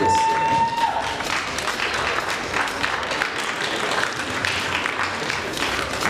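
Audience applauding and cheering in a hall, with one long high cheer in the first second that drops in pitch as it ends.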